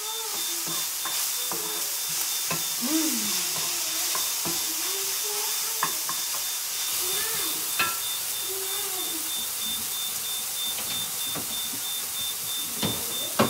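Vegetables frying in oil in a frying pan, with a steady sizzle as a wooden spatula stirs them, knocking sharply against the pan a few times, loudest near the end.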